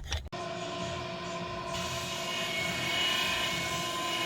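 A short clink, then a motor-driven machine running steadily with a constant whine made of several held tones over a hiss, the hiss growing brighter about two seconds in.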